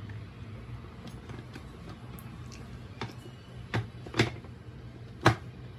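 Stainless-steel jar of a Panasonic mixer grinder being fitted and twisted onto its plastic base: light plastic clicks and scrapes, then three sharper knocks in the second half as the jar seats, under a steady low hum.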